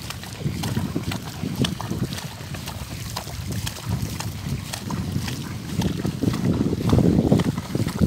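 Horse walking through shallow floodwater, its hooves splashing in short, repeated sloshes. Wind rumbles on the microphone throughout, heavier near the end.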